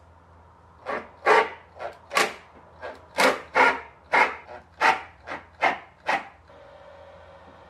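A dog barking, about a dozen sharp barks in quick, uneven succession that stop about six seconds in.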